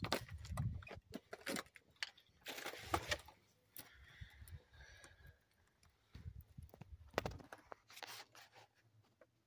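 Irregular crunches, scrapes and dull knocks of footsteps on gravelly rock and of the phone being handled close to the rock, in scattered clusters.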